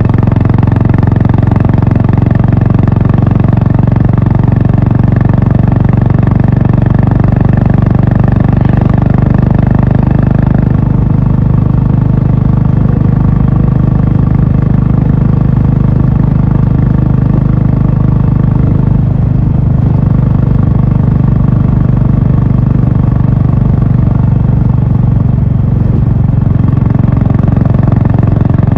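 Honda H'ness CB350's single-cylinder engine and exhaust running steadily under way; the higher part of the sound thins about ten seconds in.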